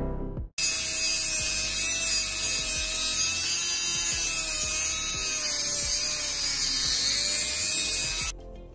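Handheld electric rotary tool with a small cutting disc cutting metal at a front-suspension ball-joint stud: a steady high motor whine, wavering slightly in pitch, over a grinding hiss. It starts just over half a second in and cuts off suddenly near the end.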